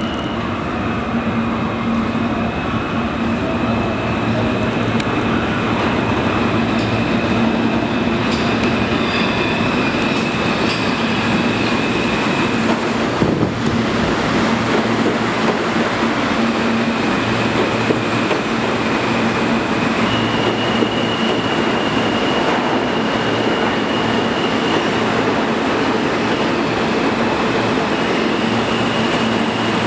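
R160 subway train pulling into an underground station and running along the platform: a steady rumble of wheels on rails with a high steady whine that steps up in pitch about two thirds of the way through. There is one sharp clank near the middle.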